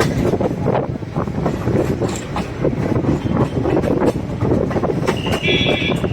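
Passenger express train running on the rails, heard from aboard: a steady rumble with irregular wheel clacks over rail joints and points. A brief high-pitched tone sounds about five seconds in.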